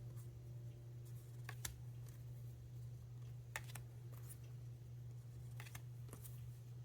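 Faint, irregular clicks and taps of tarot cards being handled and turned over one by one, over a steady low hum.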